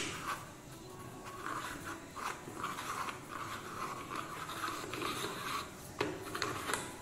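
Plastic scraping and rubbing with faint clicks as the knob on a Makita DUC252 cordless chainsaw's sprocket cover is turned by hand to loosen the cover, with a sharper click about six seconds in.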